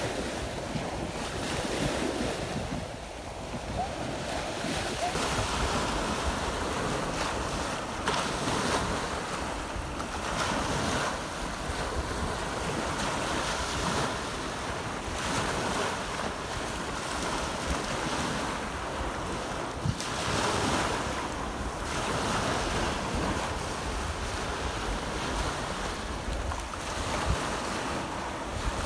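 Small waves breaking and washing up the sand at the shoreline, swelling every few seconds, with wind rumbling on the phone's microphone.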